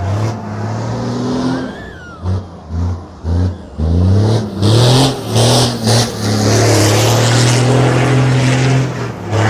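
KAMAZ-master rally truck's engine revved in a run of short blips, then held at high revs for about three seconds with a hiss of tyres as the truck drifts on asphalt.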